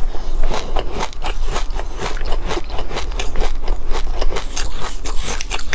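Close-miked chewing of a mouthful of black and white sesame seeds with yogurt: dense, rapid crunching crackles. A metal spoon scrapes against the glass cup as it scoops more seeds.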